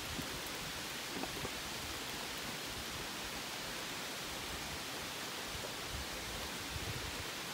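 Steady rain falling on forest foliage: an even hiss with an occasional faint tap.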